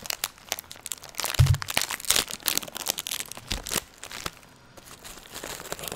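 A foil-lined plastic biscuit wrapper crinkling and crackling as it is torn open, in a dense run of sharp crackles. Two dull thumps come through it, the first the loudest, and the crinkling thins out about four seconds in.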